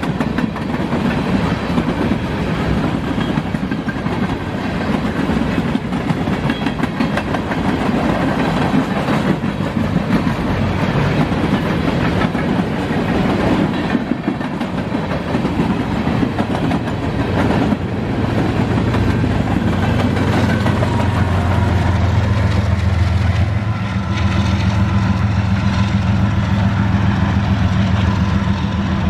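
Covered hopper cars of a freight train rolling past, their steel wheels rumbling and clicking steadily on the rails. From about two-thirds of the way in, a steady low diesel locomotive engine drone joins and grows as a locomotive nears.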